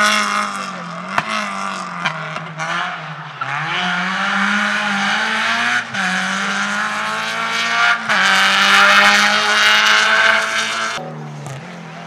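Rally car engine revving hard, its pitch climbing and then dropping at gear changes about 6 and 8 seconds in. It is loudest just before a sudden fall in level near the end. Sharp pops are heard in the first few seconds.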